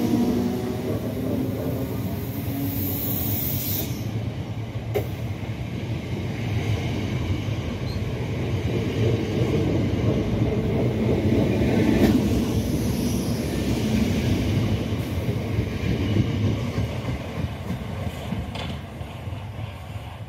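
Southern Class 455 electric multiple unit pulling out past the platform: steady rumble of its wheels on the rails, with a few sharp clicks from the rail joints. The sound fades over the last few seconds as the rear coach clears.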